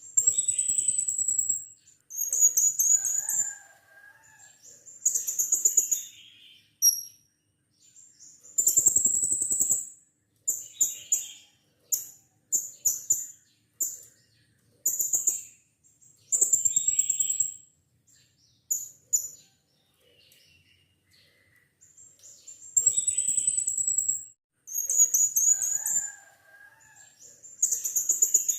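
Blue-crowned hanging parrot (serindit) giving shrill, high-pitched calls in rapid pulsed bursts of half a second to two seconds, repeated with short pauses and one longer pause about two-thirds of the way through.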